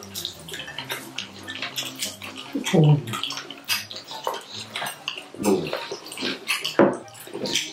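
Close-up wet chewing and lip-smacking of people eating rice and stew with their hands: irregular, sticky clicks and squelches.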